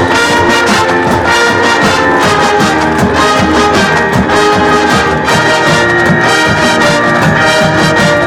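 Marching band brass section playing loud sustained chords with percussion hits underneath.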